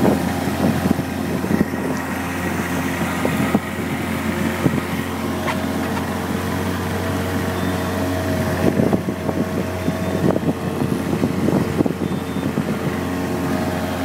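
Boat outboard motor running steadily at speed, with a few short thumps from the hull meeting the chop.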